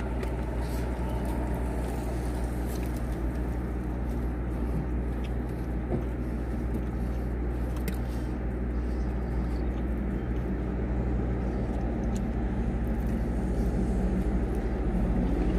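Steady low drone of a car idling, heard inside its cabin, with a few faint clicks.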